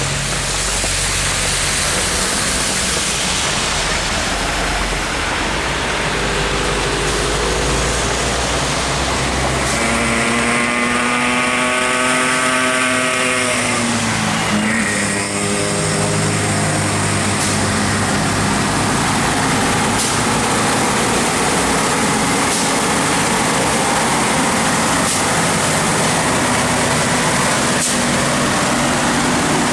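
Heavy diesel truck engine working up a steep climb. About a third of the way in its note rises for a few seconds, then drops away.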